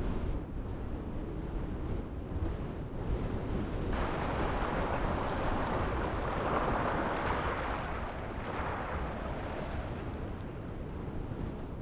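Wind rumbling on the microphone, with surf hissing in about four seconds in, swelling and then fading by about nine seconds.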